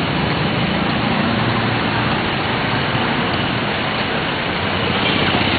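Steady traffic noise of vehicle engines running on a flooded street, with a constant wash of noise and no breaks.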